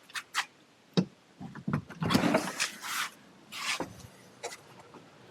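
Handling noise from gear being set up: a run of sharp clicks and short scraping, rustling bursts, busiest about two seconds in.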